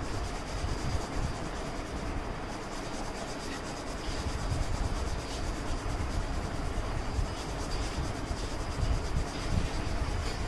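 Yellow coloured pencil rubbing back and forth on drawing paper, a steady scratchy sound of light shading as an area is filled in with colour.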